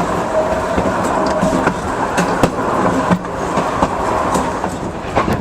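Passenger railcar riding along the track: a steady rumble of wheels and car body, with scattered clicks and knocks from the wheels over the rail.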